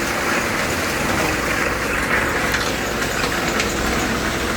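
Backhoe engine running steadily, a continuous low rumble with a noisy upper wash and a few faint clicks.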